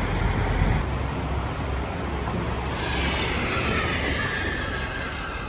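Steady rumbling background noise with wind buffeting the microphone; a higher hiss joins about three seconds in.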